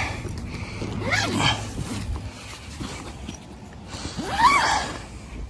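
Zipper of a soft rifle case being pulled open in two long strokes, about a second in and again near the end, each stroke rising and then falling in pitch.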